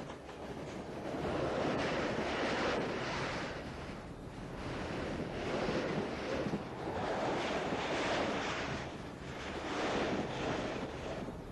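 Wind blowing in gusts: a rushing noise that swells and dies down every two or three seconds.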